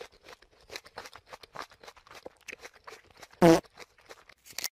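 A groundhog chewing a raw carrot, a quick, uneven run of small crunches. One short, loud, voice-like cry cuts in about three and a half seconds in.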